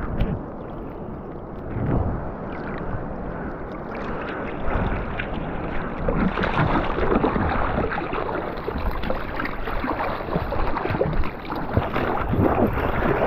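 Ocean surf water sloshing and splashing, with many small splashes; it gets busier about four seconds in.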